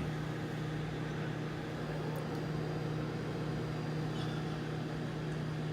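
Microwave oven running: a steady low hum over a faint airy hiss.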